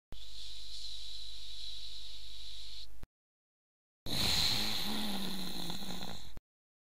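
Loud static hiss in two stretches, about three seconds and then about two, each starting and stopping abruptly. A low, wavering tone runs under the second stretch.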